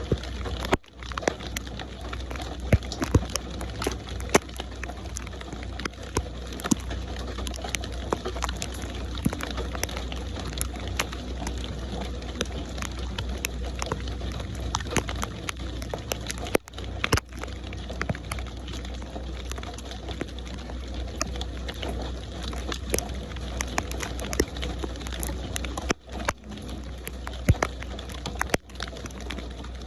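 Steady rain: a constant hiss thick with sharp drop ticks and a low rumble underneath. The sound cuts out for an instant about four times.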